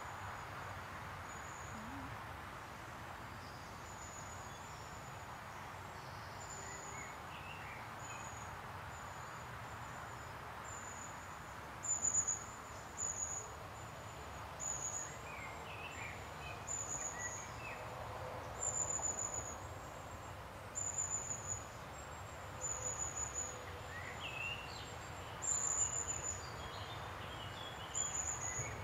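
Woodland countryside ambience. A high, thin chirp repeats every second or so and grows louder about halfway through. Softer bird calls come and go over a steady background hush.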